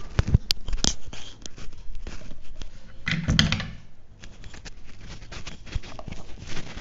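Realme Buds Wireless earpieces handled close to the microphone: several sharp clicks as the magnetic earbuds are snapped together and pulled apart, with scratchy rubbing of fingers on the rubber and metal housings. A denser cluster of clicks and rustle comes a little past three seconds in.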